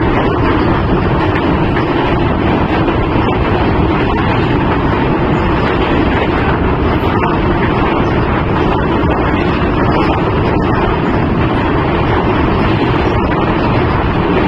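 Express passenger train running at speed, heard from on board: a steady, loud rushing rumble of wheels on the track, mixed with wind noise.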